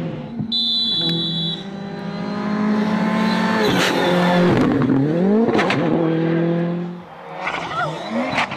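Ford Fiesta R5 rally car engines at high revs at speed. The pitch drops sharply and climbs again as the cars brake, change gear and pull out of corners, with a few sharp bangs.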